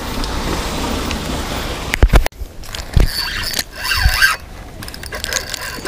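Wind rumbling on the microphone, then a few sharp knocks and thumps, the loudest about two seconds in, with faint high tones between them.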